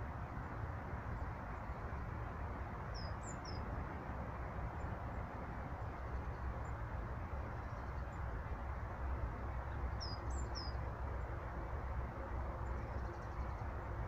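A small bird gives a short, high three-note call twice, about three seconds in and again about ten seconds in, over a steady low outdoor rumble.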